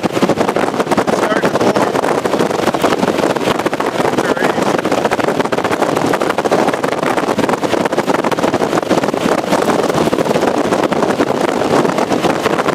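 Heavy rain pounding steadily on the storm-chase vehicle, a dense, loud crackle of drops with no letup.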